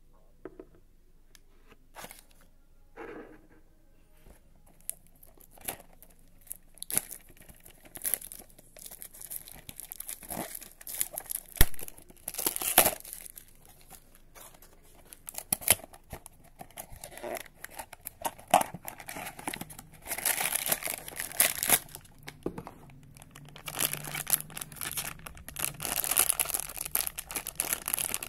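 Funko Mystery Minis packaging being opened by hand: the black foil blind bag crinkling and tearing, with scattered sharp taps and clicks of the cardboard box being handled. The crinkling grows denser and louder in the last third.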